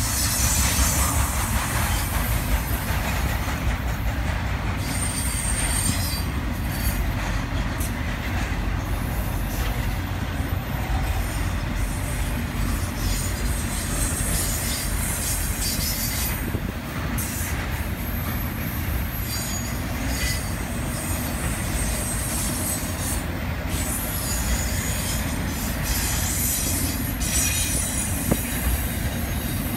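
Intermodal freight train cars rolling past, a steady rumble of steel wheels on rail, with short high-pitched wheel squeals now and then.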